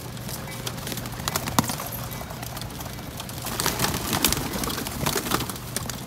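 A flock of feral pigeons feeding on scattered seed: rapid clicks of beaks pecking the roof surface and scuffling, with a louder flurry of wing flapping and jostling between about three and a half and five and a half seconds in.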